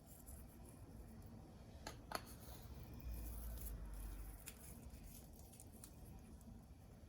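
Faint handling noises: a few light clicks and knocks, with a low rumble for about a second in the middle.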